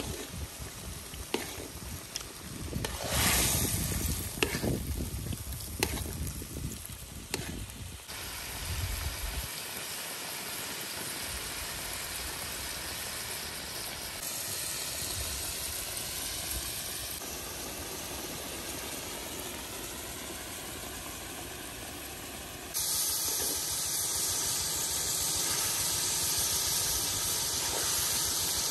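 Chili broth boiling around a whole fish in a large metal wok. In the first several seconds a ladle scoops and pours the sauce, with irregular splashes and knocks; after that comes a steady hiss of bubbling liquid, which jumps louder near the end.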